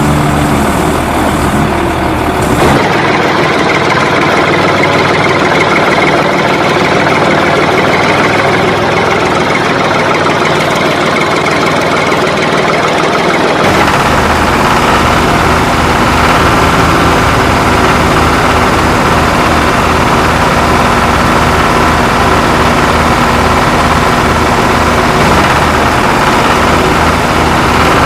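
Heavy vehicle engine running steadily, changing in tone about three seconds in and again about fourteen seconds in, after which it settles into a low, even chugging rhythm.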